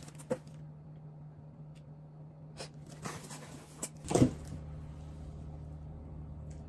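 Cardboard shipping box being handled, with scattered rustles and knocks over a steady low hum, then a short, loud excited squeal from a woman about four seconds in, falling in pitch.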